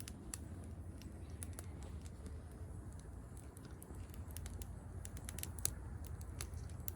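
Wood pellets and kindling burning in a small stainless steel hobo stove, crackling with irregular sharp snaps over a low steady rumble as the fire catches.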